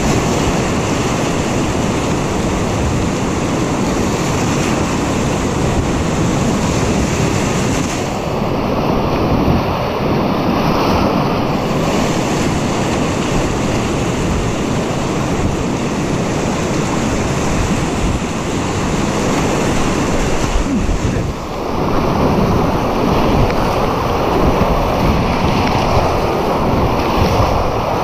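Whitewater rapids rushing and churning close around a kayak, loud and continuous, with a brief dip in loudness about three-quarters of the way through.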